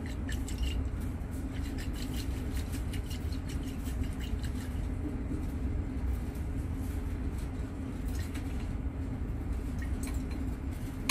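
A steady low background hum with scattered light clicks and ticks as glass lab ware is handled: an Erlenmeyer flask being shaken and set down beside a small beaker.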